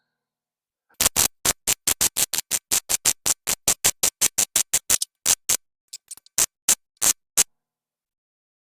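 MIG welder laying a fast run of short tack bursts, about six a second, that slows to a few scattered bursts near the end.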